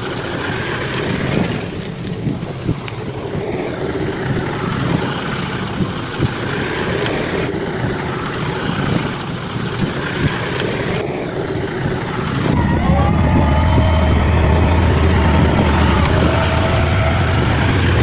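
Bulldozer's diesel engine running with scattered knocks. It grows louder about twelve and a half seconds in, when a steady whine joins it.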